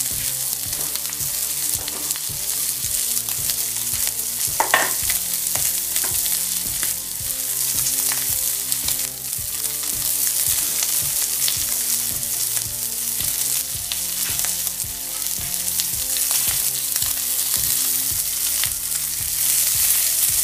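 Norwegian saba (mackerel) fillets sizzling in oil on a ridged grill pan: a steady hiss with many small crackles and spits.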